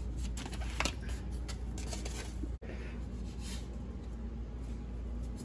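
Soft clicks and light scrapes of a knife cutting biscuit dough on a ceramic plate, over a low steady hum.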